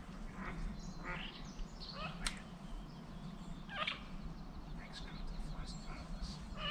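Ducks calling on the marsh at dawn: a string of short, rising calls, about one a second.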